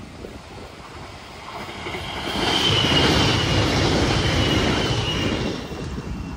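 Train passing on the track: the rumble of wheels on rail swells to its loudest about two and a half seconds in and eases near the end, with a thin high wheel squeal that falls slightly in pitch as it goes by.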